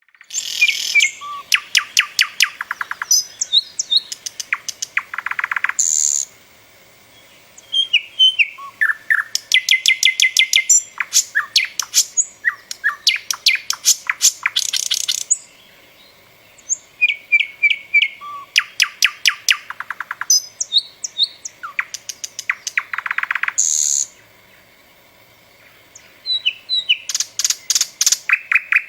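A songbird singing long, varied phrases of rapid trills, quick repeated notes and whistles, high-pitched. The phrases last several seconds each, with pauses of a second or two between them.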